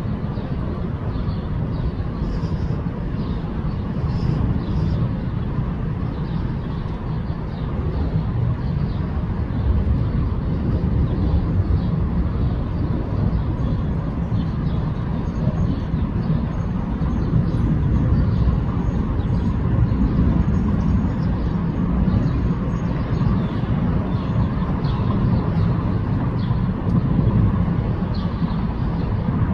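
A steady low rumble of outdoor vehicle noise, without clear engine tones, that swells and eases a little.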